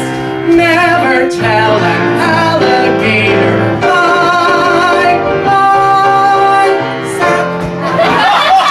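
A singer holds the long, wavering final notes of a comic show tune over grand piano accompaniment, building to the song's big finish.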